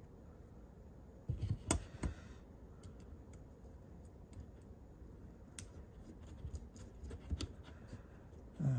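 Small metal hardware being handled: light clicks and taps as a washer and knurled nut are fitted onto a metal bracket on the side of a digital readout. There is a quick cluster of sharper clicks a little over a second in, then scattered faint ticks.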